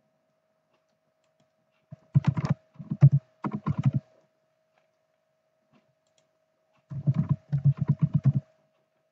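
Computer keyboard typing: two short, quick runs of keystrokes, one about two seconds in and another about seven seconds in, each a single word being typed.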